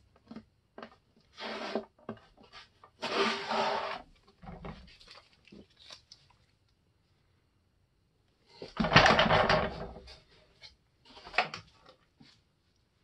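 Old iron-on covering film (Monokote-type plastic) being scraped and peeled off a balsa RC plane wing with a blade: four rasping strokes with small ticks between, the longest and loudest about nine seconds in.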